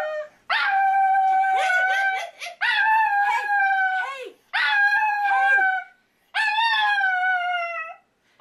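Chihuahua howling: four long howls, each held on one high note that sags slightly at its end, with short breaks between them.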